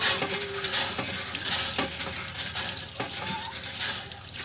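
Water pouring from a hand pump's spout and splashing onto a wet puppy and the concrete platform beneath it: a steady hissing splash.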